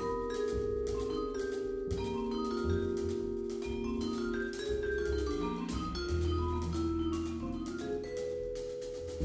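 Small jazz combo playing: vibraphone struck with mallets over Fender Rhodes electric piano, upright bass and a drum kit with steady cymbal strokes.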